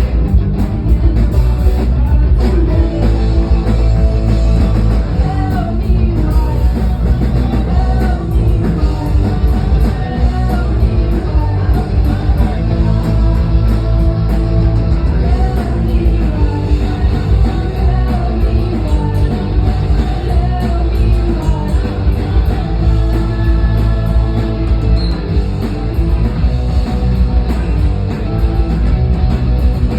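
Live rock band playing loudly, with a heavy bass and drum low end, distorted guitars and singing.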